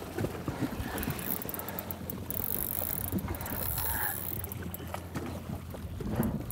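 Wind on the microphone and water slapping against a jet ski at sea, over a low steady hum, with a stretch of stronger wind gusting a little over two seconds in.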